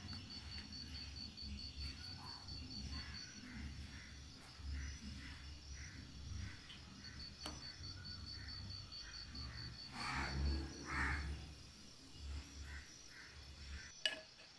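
Insect chirping in a fast, even pulsing trill, faint, a cricket or similar, over a low rumble. There is a single sharp click about halfway through, and a couple of louder bird calls around ten seconds in.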